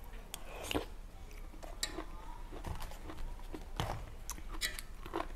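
A person chewing a spoonful of bamboo-shoot curry close to the microphone: irregular small clicks and mouth sounds.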